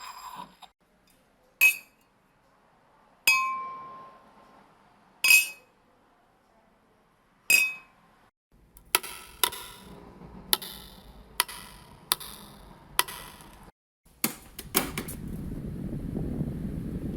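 A run of household sound effects. First come four single sharp clinks, a second or two apart, one of them leaving a ringing tone that fades. Then a regular tap about every 0.8 s over a low hum, and finally a few quick clicks before a steady rushing noise starts near the end.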